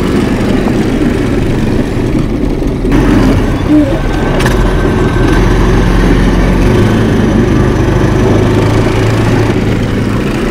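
Small go-kart engine running steadily as it drives the boat kart along, its note shifting to a new steady pitch about two-thirds of the way through.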